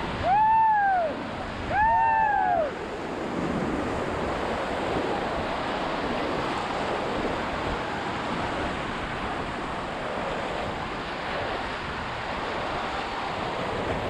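Rushing whitewater of river rapids around an inflatable raft, with wind on the microphone. Near the start, two loud long shouts that rise and fall in pitch, a little over a second apart, are the loudest sounds.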